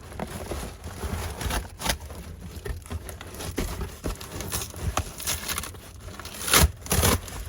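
A delivery package being torn and crinkled open by hand without scissors: irregular rustling and ripping, with a louder burst of tearing near the end.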